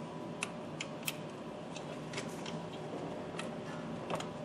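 Scattered light plastic clicks and ticks, about eight of them at irregular intervals, as a steering-column clock spring and its wiring connector are handled and worked loose by hand. A faint steady hum runs underneath.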